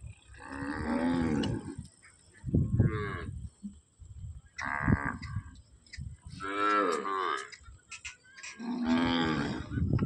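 Kankrej cattle mooing: about five separate calls, each under a second or so, coming roughly every two seconds.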